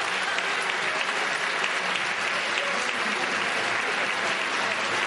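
Large theatre audience applauding steadily as the curtain closes.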